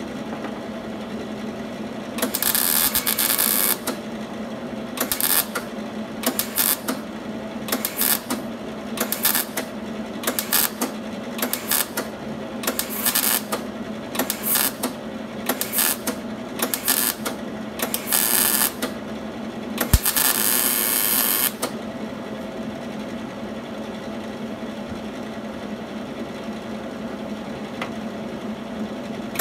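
MIG welder laying a run of short tack or stitch welds on the steel body of a 1950 Plymouth: about eighteen brief bursts of welding, most under half a second, with a longer one of about a second and a half about two-thirds of the way through. A steady low hum runs underneath.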